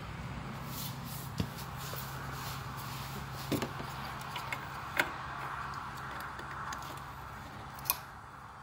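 A few sharp clicks and small knocks from a plastic wiring connector being handled and clipped onto a metal bracket, over a steady low hum.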